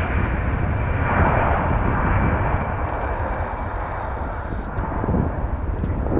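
Airbus A320 jet engines running at high thrust during the take-off roll: a steady loud rumble with a thin high whine that fades about halfway through.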